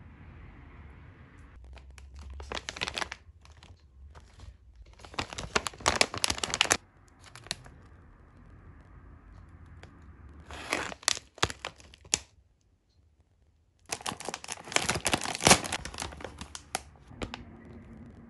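Foil-lined potato chip bag crinkling in four bursts as it is handled and torn open.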